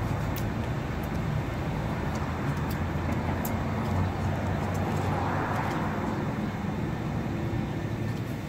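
Steady road traffic and engine noise, swelling around the middle as a vehicle passes.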